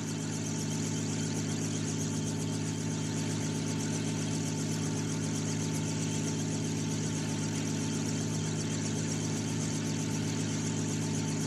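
Steady engine hum: several low tones held without change and a faint higher whine over an even hiss, swelling slightly in the first second.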